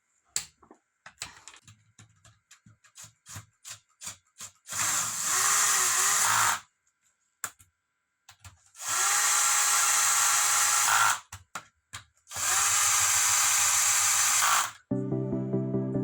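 A power tool run in three bursts of about two seconds each, a motor whine over loud hissing, after a few seconds of light clicks and knocks from handling tools and parts.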